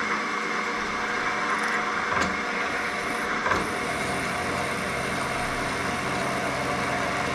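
Drill press running with a small drill bit feeding down into a metal part, cutting a set-screw hole: a steady motor hum and whine.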